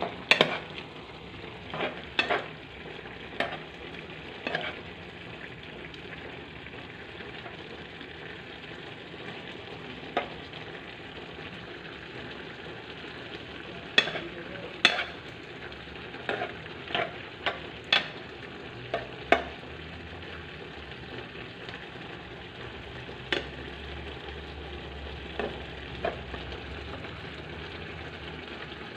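Vegetables sizzling steadily in a frying pan as they finish cooking, with a metal spoon stirring and clinking sharply against the pan now and then.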